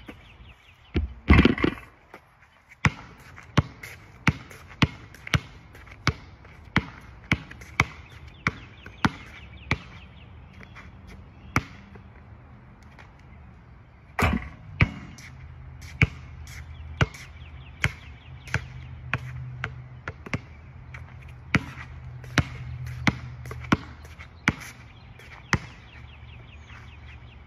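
Basketball dribbled on a hard outdoor court: sharp, regular bounces about twice a second, with a short pause and a louder knock near the middle.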